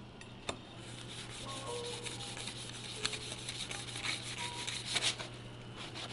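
Chef's knife sawing back and forth through the crisp baked crust and layered filling of a rolled pizza loaf on a wooden cutting board: a faint scratchy rasping with small crackles of the crust.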